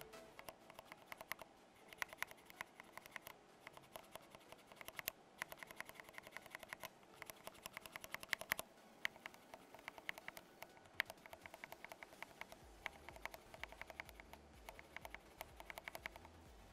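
Cherry MX Black linear keyboard switch under a keycap, a single key pressed and released over and over with faint, irregular clacks. At first the switch is stock and unlubricated; near the end it is a stock switch that has been heavily lubed. The test is for the scratchy sliding noise (서걱임) these switches are known for.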